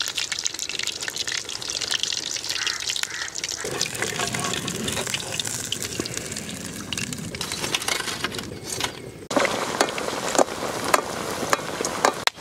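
Breadcrumb-coated chicken pieces deep-frying in hot oil in a kadai: a steady, loud sizzle with many sharp crackles and pops. About nine seconds in the sizzle changes abruptly and the pops grow sharper.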